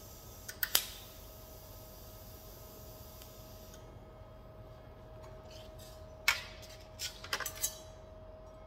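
Light metal clicks and clinks from a steel intake pipe being handled and repositioned on a metal welding bench between TIG tacks. There are two sharp clicks a little under a second in, a single knock about six seconds in, then a quick cluster of clinks, all over a steady faint hum.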